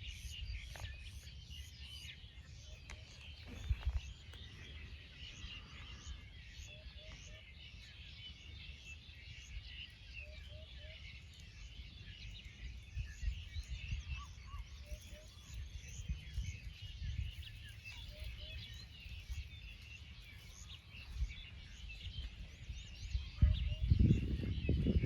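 Many small birds chirping and calling, with wind rumbling on the microphone that gusts louder near the end.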